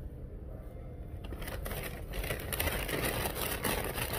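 Paper being handled and crinkled, a dense run of rustling crackles that starts about a second in and grows louder toward the end, over a low steady hum.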